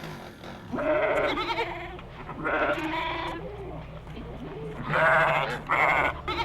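Four wavering, quavering vocal cries, each about half a second to a second long, over a low steady hum.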